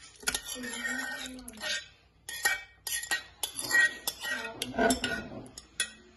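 Utensils clinking and knocking against a glass bowl and a plastic blender jar as chunks of set gelatin are scooped into the jar, with repeated short clicks and scrapes.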